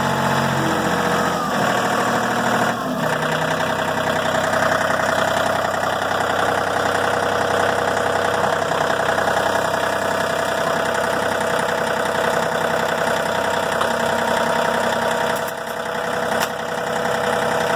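A John Deere 4105 compact tractor's 41 hp Yanmar diesel running steadily below full throttle just after starting. The engine note settles in the first three seconds. The tractor's front end loader is being worked on its hydraulics meanwhile.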